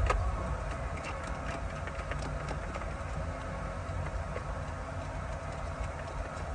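Hand-tool work on a car's interior: scattered light clicks and ticks, closer together early on and sparser later, over a steady low hum.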